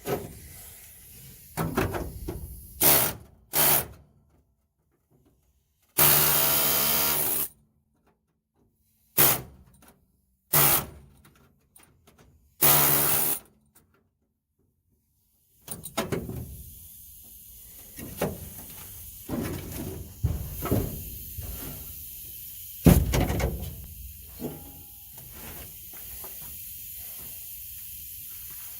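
Short, separate bursts of a power tool working the steel of a car's torsion bar bracket, the longest about a second and a half with a steady pitched whine. The bursts are cut apart by abrupt silences. For the last dozen seconds a steady hiss runs under scattered clicks and metal knocks, with one sharp loud knock a few seconds after it starts.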